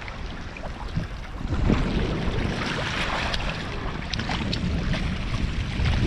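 Shallow seawater washing and swirling among shoreline rocks and pebbles, surging more strongly about two seconds in. Wind buffets the microphone with a low rumble.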